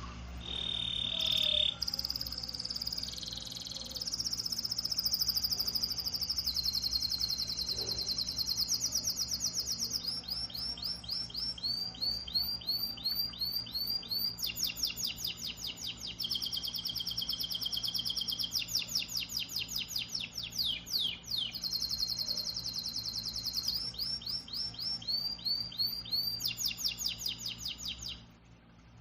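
A songbird singing one long, almost unbroken song of fast high trills and rows of quickly repeated notes, changing pattern every second or two. The song stops shortly before the end, over a low steady hum.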